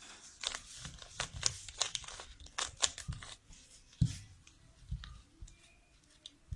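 Plastic 3×3 Rubik's cube being turned by hand: a quick run of clicks and rattles as the layers are twisted, densest in the first three seconds, then a single louder knock about four seconds in and a few scattered clicks.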